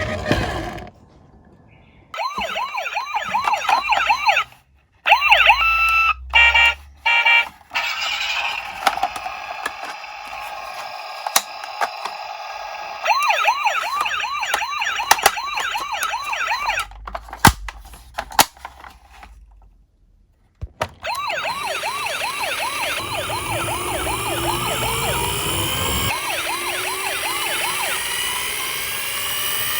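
Police car siren in a fast warbling yelp that starts and stops several times, with a few sharp clicks between. From about two-thirds of the way in, several sirens overlap, with rising and falling wails.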